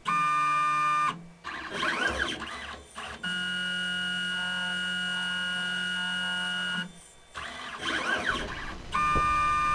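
Motors of an automated pipetting robot arm whining as it moves: steady pitched whines with several tones, the longest from about three to seven seconds in, broken by rising and falling sweeps in pitch as the motors speed up and slow down.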